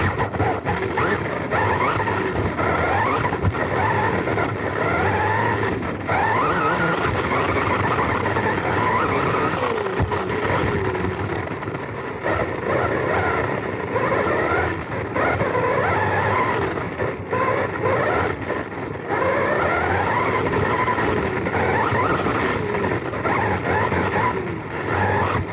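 Onboard sound of a Serpent SDX4 4wd electric RC buggy racing. Its brushless motor and drivetrain give a high whine that rises again and again as the throttle is squeezed, over a steady noise of tyres and chassis on the track.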